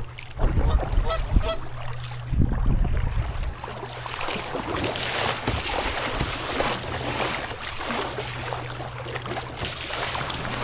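Kayak paddle strokes and choppy water splashing and sloshing against the hull. In the first few seconds there are low rumbling buffets of wind on the microphone.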